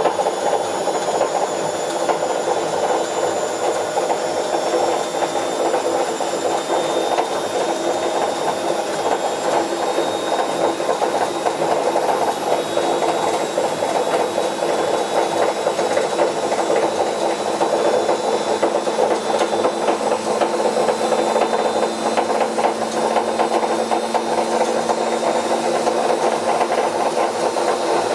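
Bauknecht WA Plus 844 washing machine running with its drum turning, a steady loud noise with a fast rattle through it: the sound of a failed drum bearing.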